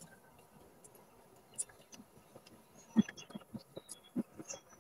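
Soft eating sounds of people eating with their hands: quiet chewing and lip smacks, with a run of short soft taps and clicks starting about three seconds in. Faint bird chirps come in near the end.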